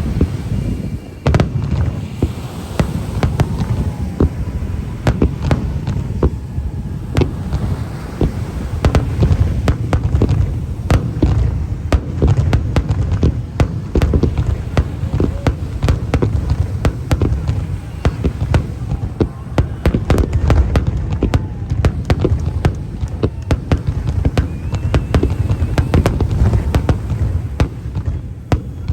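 Aerial fireworks going off in a dense, rapid barrage: many sharp bangs and cracks in quick succession over continuous low booming.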